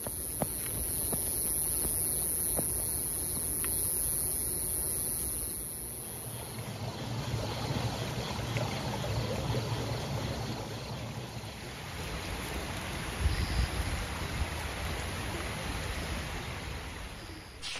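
Water running in a stream or irrigation ditch, a steady rushing hiss, with a steady high-pitched tone over the first six seconds or so.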